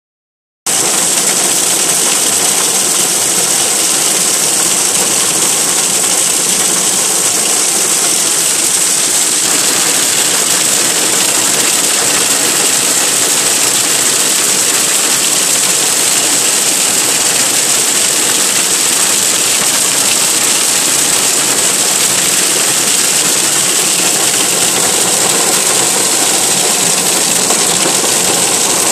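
Hail pelting the car's roof and windscreen, heard from inside the car: a loud, dense, unbroken din that starts about half a second in and holds steady.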